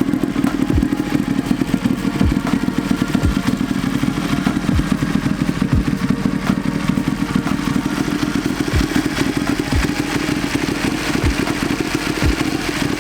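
Motorcycle engine running steadily, with a deep low thump recurring about once a second in an alternating long–short rhythm.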